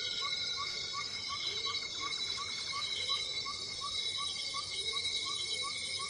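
Cicada song: a steady, high-pitched insect drone, with a short chirp repeating about three times a second over it.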